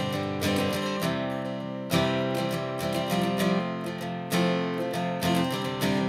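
Background music: acoustic guitar strumming chords at an easy pace.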